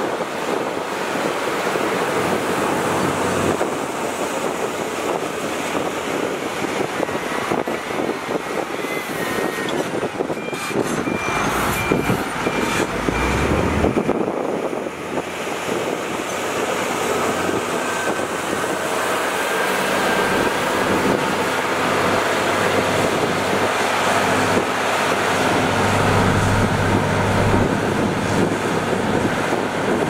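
Diesel engines of heavy road-building machines, a motor grader and a road roller, running steadily under work. A short run of high beeps comes about a third of the way in.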